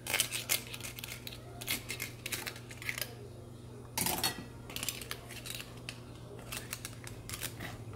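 Kitchen scissors snipping and metal tongs clicking against scallop shells and the pot while seafood is cut up in a hot pot: a quick, irregular run of sharp clicks, with one louder scrape about halfway through. A steady low hum runs underneath.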